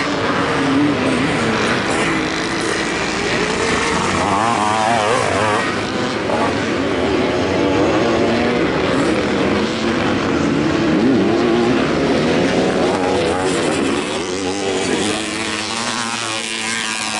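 Several vintage motocross motorcycles racing, their engine notes overlapping and rising and falling as the riders rev through the track.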